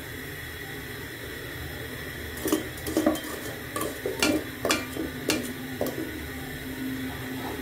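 A metal spoon stirring date-palm jaggery and water in a metal pot on the stove, clinking and scraping against the pot's sides in a quick irregular run from about two and a half seconds in until about six seconds. Underneath is a steady low background hiss.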